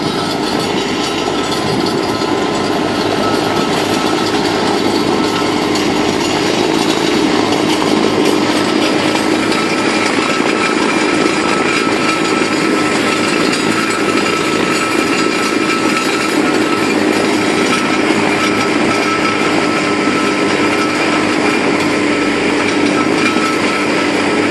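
A tractor-driven three-point PTO slurry mixer running under load, a loud steady mechanical drone with a steady low hum and a higher whine, as its propeller churns the slurry and stirs up the floating crust.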